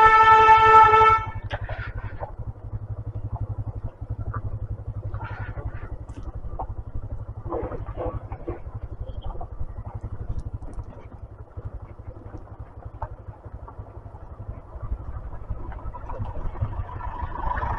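A horn sounds once, loud and steady-pitched, for about a second. After it comes the steady low running of a motorcycle engine on the move.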